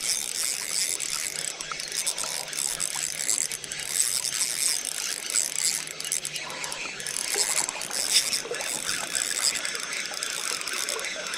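Shimano spinning reel ratcheting and clicking steadily while a hooked brown trout is played: the drag and gears working under the pull of a strong fish.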